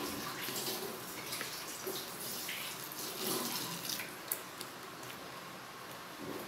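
Wooden spoon stirring homemade liquid soap in a large plastic basin: steady sloshing of the liquid, with one sharp click a little past the middle.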